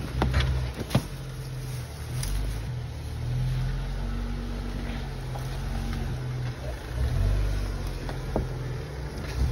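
Jeep Wrangler JK Rubicon's V6 engine running at low revs under load as it crawls over boulders, the rumble swelling and easing with the throttle. A couple of sharp knocks sound about a second in, and another near the end.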